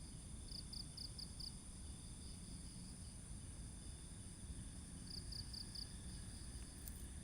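Crickets chirping faintly: two short runs of four or five quick pulses, one near the start and one about five seconds in, over a steady high insect drone and a low rumble of background noise.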